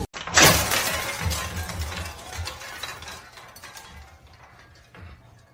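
A sudden loud crash, as of something falling and breaking, followed by scattered clattering and tinkling that dies away over a few seconds.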